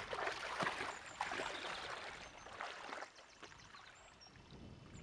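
Water splashing and swishing as a person wades through a pond in chest waders, loudest in the first three seconds and then fading.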